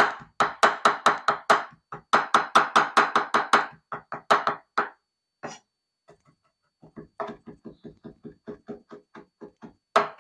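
Kitchen knife chopping fast on a cutting board, in quick runs of strikes about six a second. A few loud runs are followed by a short pause, then a softer run of chopping near the end.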